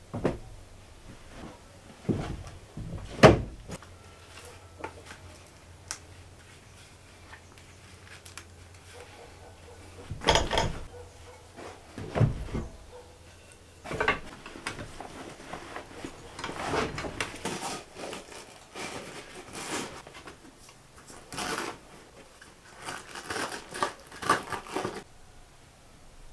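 A person handling things in a small room of wooden boards: scattered knocks and thumps on the planks, the loudest about three seconds in, between stretches of fabric and canvas rustling as a blanket is spread and a canvas backpack is handled.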